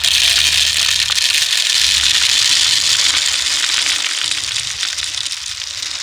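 Dry birdseed pouring from a plastic bag into a plastic bottle: a steady rushing rattle of small grains on plastic, easing a little near the end.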